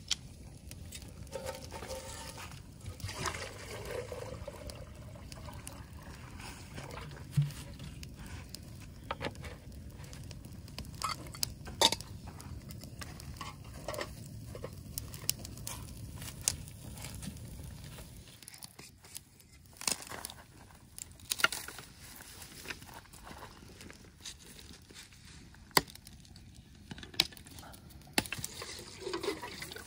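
Scattered sharp clicks and knocks of cooking work, utensils and dishes being handled, over a low steady rumble that drops away about two-thirds of the way through.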